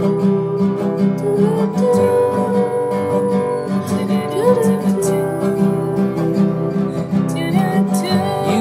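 Background music: a song with strummed acoustic guitar in a steady rhythm under a long-held melody line.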